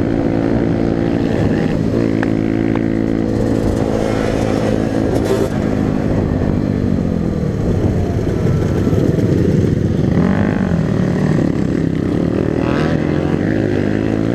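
Dirt bike engine running under way, heard from the rider's own machine, with the engine note dropping and rising several times in the middle as the throttle is worked. A steady rush of wind and road noise runs underneath.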